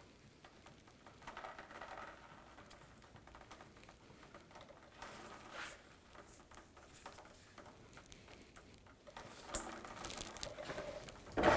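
Engine coolant dripping and pattering from the loosened lower radiator hose into a drain pan, with light clicks of the hose being worked by hand. The flow grows louder near the end as the coolant starts to stream out.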